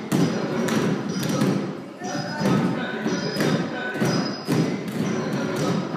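Dancers' bare feet stamping rhythmically on a wooden floor in Bharatanatyam footwork, a series of sharp thuds, over recorded Carnatic dance music with a voice.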